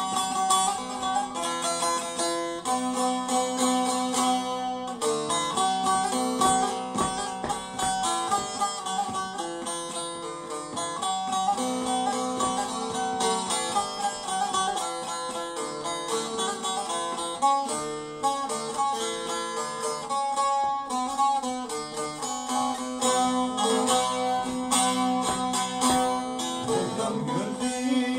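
Turkish bağlama (long-necked saz) played solo with quick plectrum strokes: a folk melody picked over a steady ringing drone note.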